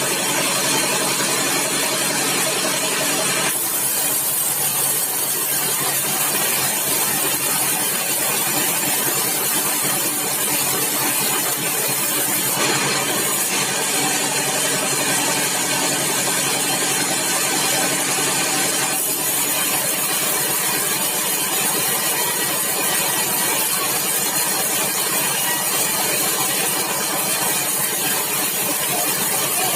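Sawmill machinery running steadily: an engine hum with a high hiss over it. The sound shifts abruptly a few times.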